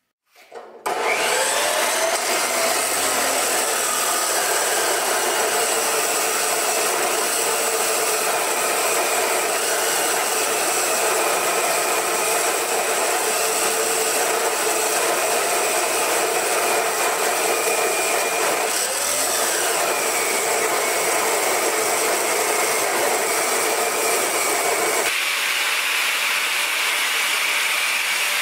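Abrasive chop saw starting up and cutting through steel stock, a loud, steady hiss and screech as the cut-off wheel grinds through the metal. About 25 s in the sound thins to a higher hiss as a corded grinder works on a steel plate.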